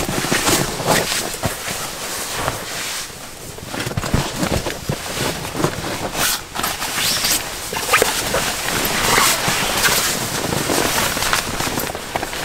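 Rustling of clothing and a nylon sleeping bag, with many small clicks and crackles throughout, as boots are handled and a person shifts about on a camp cot.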